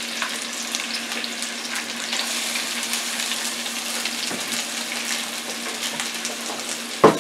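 Sliced onions and sweet pepper sizzling steadily in a hot frying pan, a fine crackle with a low steady hum beneath. A single knock near the end.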